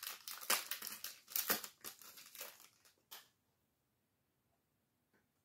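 Foil Pokémon booster pack wrapper crinkling and tearing as it is handled and opened, a quick run of crinkles that stops about three seconds in.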